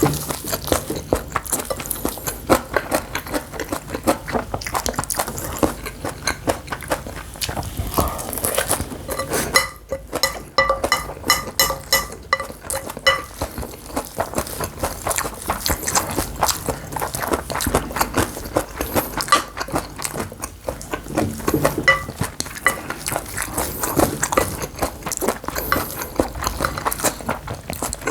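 A spoon scraping and clinking against a bowl of bibimbap as the rice is stirred and scooped. There is a quick run of ringing clinks about ten seconds in.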